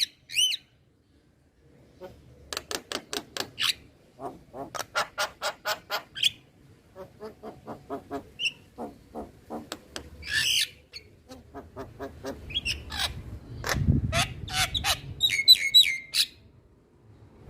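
Male Javan myna calling: runs of rapid harsh clicking notes, a few per run-second, in bursts with short pauses, mixed with a few clear whistled notes.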